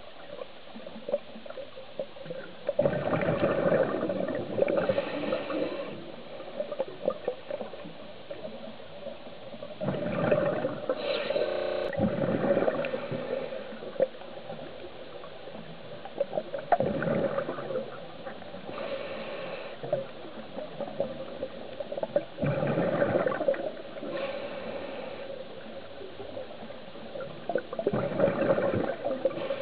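Scuba diver's regulator breathing heard underwater: a burst of exhaled bubbles gurgling out about every five to six seconds, with quieter stretches between breaths.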